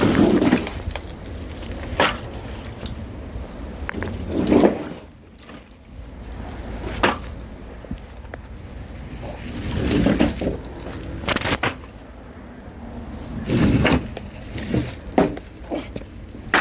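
Irregular knocks and scraping thuds, a few seconds apart, with a few sharp clacks in between, over a low steady rumble.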